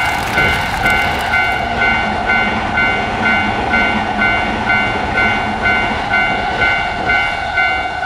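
Japanese railroad crossing warning bell ringing steadily in even repeated two-tone strokes, while an express train passes over the rails with a steady rushing and rumbling.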